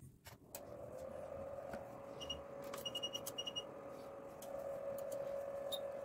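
Rigol DS1022C digital oscilloscope powered on: a click, then its cooling fan starts about half a second in and runs as a faint steady hum with a steady whine. A run of short high electronic beeps comes between about two and three and a half seconds in.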